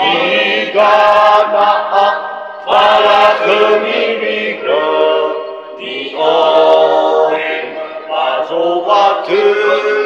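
Nias wedding koor: a group of men singing a cappella in a chant for the fanema bola nafo (receiving of the betel-nut bag) rite. The voices move in short phrases, breaking off and re-entering every second or two.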